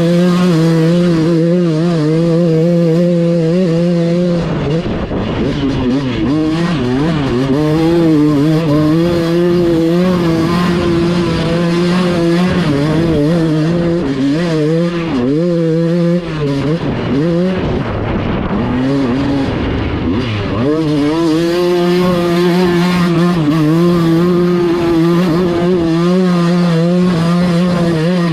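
Dirt bike engines running, holding a steady note at first and at the end, with the revs rising and falling through the middle as the throttle is worked.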